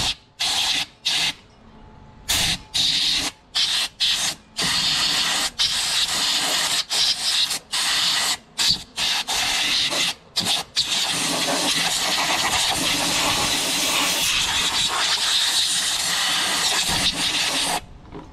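Compressed air hissing from a pneumatic tool on a coiled air hose, worked at the excavator's hydraulic filter cover. It comes in a string of short bursts, then runs steadily for about seven seconds and cuts off sharply near the end.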